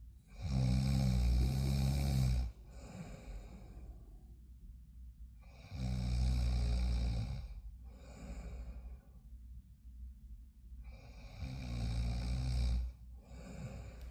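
Loud snoring: three long snores, roughly five to six seconds apart, each followed by a quieter breath.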